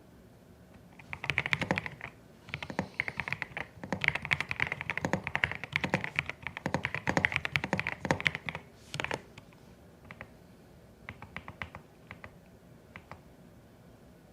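Typing on a CIDOO ABM081 Stellar mechanical keyboard with Carda switches: a fast, dense run of keystrokes from about a second in until about nine seconds, then a few scattered keypresses.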